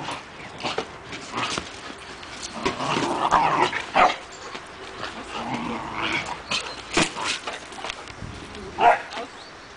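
A dog giving a few short, scattered barks and yips, with the sharpest ones about four, seven and nine seconds in.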